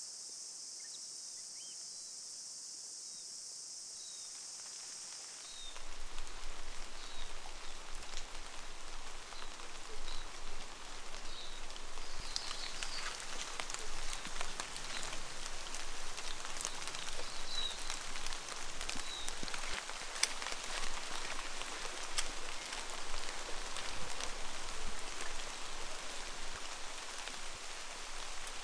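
A steady high-pitched insect chorus, cut off abruptly about five seconds in by rain falling, with a dense patter and many separate drops ticking sharply.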